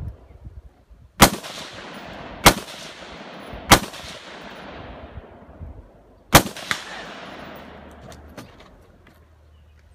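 Four gunshots from a competitor's firearm during a practical-shooting stage, the first three about a second and a quarter apart and the fourth after a longer pause, each trailing a long fading echo.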